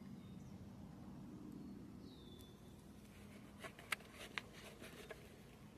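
A single short, falling whistle call from a bird about two seconds in, over faint outdoor background, followed by a few sharp clicks.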